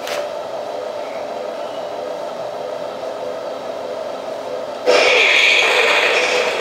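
RC model tank's electronic sound unit playing a steady engine-idle sound through its small speaker. About five seconds in, a louder hissing sound effect cuts in for about a second and a half, then stops.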